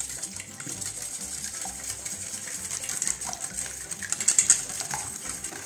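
Wire balloon whisk beating a runny egg and pumpkin-purée batter in a stainless steel bowl: a steady wet rattling and clinking of the wires against the metal, a little louder about four seconds in.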